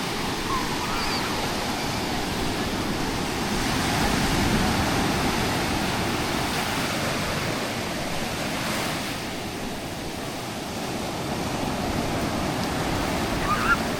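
Sea surf washing on the shore: a steady rush of waves that swells about four seconds in and eases off around ten seconds.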